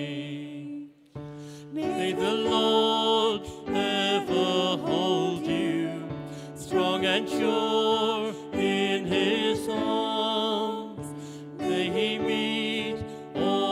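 A man singing a solo with vibrato to electric keyboard accompaniment, in phrases with short breaks between them.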